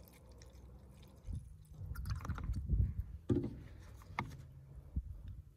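Mixing fiber-reactive dye in a plastic cup: a squeeze bottle pressed out into the dye, then stirring with a plastic spoon and gloved hand. Low rustling and scraping, loudest in the first half, followed by three sharp clicks or knocks.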